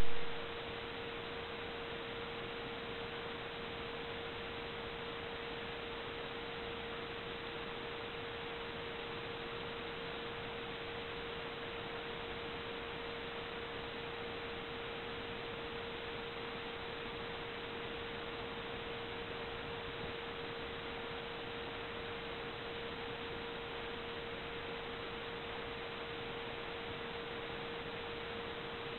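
A steady hiss with a single constant mid-pitched tone, unchanging throughout, after a brief loud blip at the very start.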